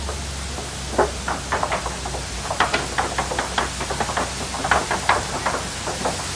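Safari truck rattling and knocking irregularly as it drives over a rough, bumpy track, with a steady low engine drone underneath.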